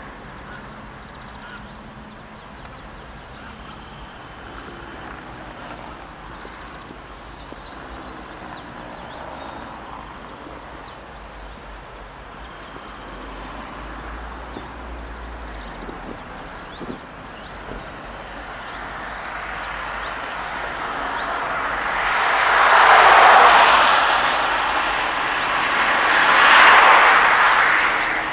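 Two cars pass close by on a road, each swelling up and fading away, about three-quarters of the way through and again near the end. Underneath is a steady traffic hum, with small birds chirping during the first half.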